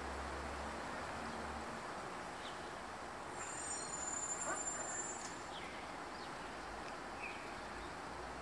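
Steady outdoor background hiss with a low hum during the first second or two, a few faint high chirps, and a brief high-pitched ringing trill about halfway through. No goose calls are heard.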